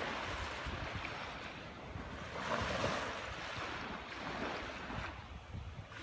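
Small waves lapping and washing up onto a sandy beach. The wash swells as a wave comes in a little over two seconds in, then eases toward the end.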